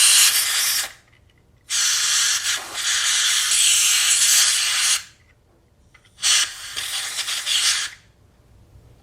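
Pressurised spray hissing into a seat belt retractor mechanism to flush out debris, in three bursts: a short one ending about a second in, a long one of about three seconds, then a shorter one near the end.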